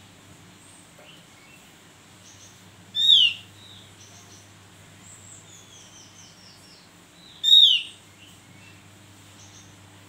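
Javan grey-throated white-eye (opior jawa) giving two loud, sharp, downward-slurred calls about four and a half seconds apart. Faint high twittering notes come between them, including a quick falling run of short notes.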